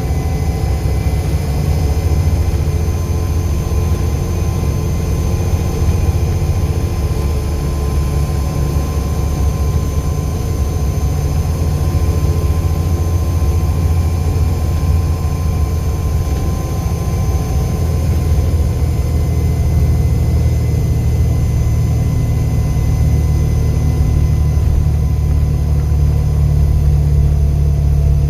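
Volvo B7 bus's six-cylinder diesel engine running steadily, a deep rumble with a faint, thin, steady high whine above it.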